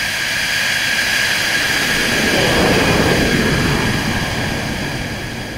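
Fighter jet engines passing by: a steady high whine over a rushing noise that builds to a peak about halfway through, then fades away.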